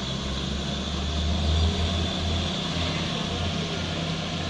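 Heavy diesel truck engine running steadily with a low drone.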